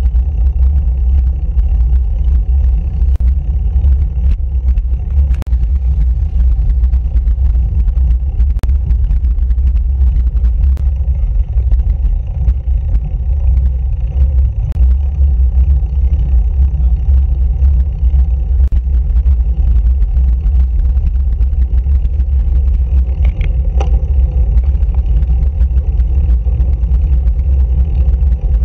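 Wind buffeting and road rumble on a road bike's handlebar-mounted camera while riding: a loud, steady low rumble, with a few faint clicks.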